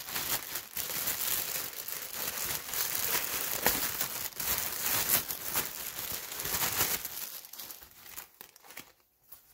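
Clear plastic poly bag crinkling and tearing as it is handled and pulled open by hand, a dense crackle that thins out and dies away over the last couple of seconds.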